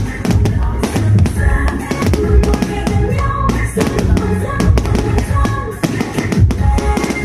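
Loud music with a steady drum-kit beat, bass drum and pitched instruments.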